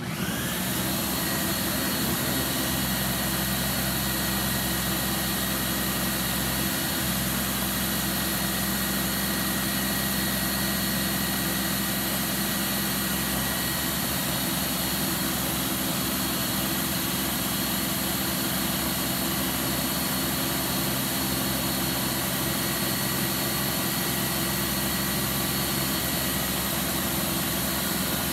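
Ninja Kitchen System 1500-watt blender motor running under load, blending thick hummus while oil is drizzled in to thin it. It spins up right at the start, then runs steadily and loudly.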